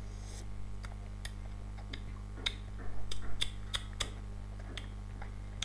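Sipping and swallowing from a can of Gorilla energy drink: a scatter of small clicks and gulps, busiest about three seconds in.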